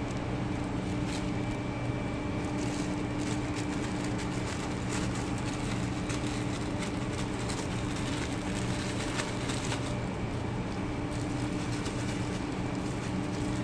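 Steady mechanical hum of a running motor or fan, even in level throughout, with a few faint clicks.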